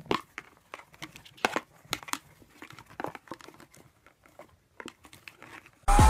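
Scattered light clicks and crinkles, irregular and a few a second, as a small red cardboard box is handled.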